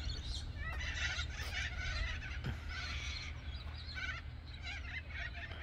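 Birds calling in short, repeated high-pitched bursts, roughly one a second, over a steady low rumble.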